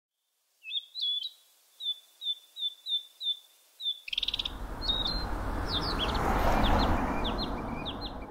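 Small birds chirping: a run of short, high whistled notes, about two or three a second, after a brief trill. About halfway through a steady rushing noise comes in under further scattered chirps.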